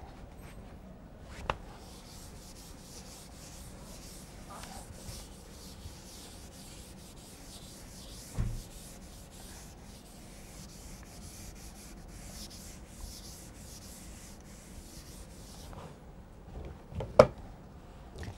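Faint, uneven scratching and rubbing, with a small click at the start, a soft knock about halfway through and a sharper click near the end.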